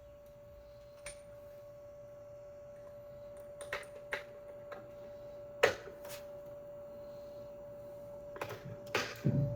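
Scattered light clicks and knocks of hand tools and parts being worked in a car's engine bay, with one sharp knock about halfway through and a quick cluster near the end, over a faint steady hum.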